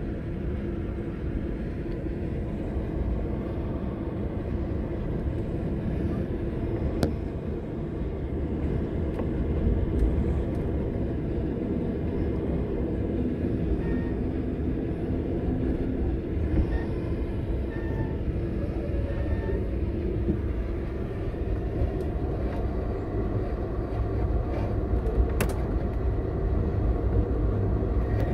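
Amtrak Capitol Limited passenger train in motion, heard from inside the car: a steady low rumble of the wheels running on the rails, with a few sharp clicks.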